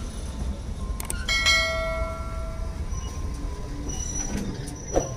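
Kalka–Shimla narrow-gauge toy train running, a steady low rumble heard from the carriage. About a second in come a couple of clicks and a single bell-like ding that rings on briefly.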